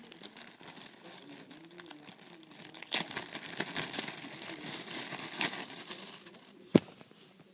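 Thin clear plastic bag crinkling and rustling as it is handled and pulled open, with one sharp knock near the end.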